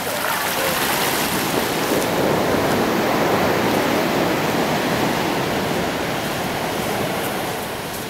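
Ocean surf washing up a black volcanic sand beach, a steady rush of foaming water. It swells from about two seconds in and eases off near the end as the wave draws back.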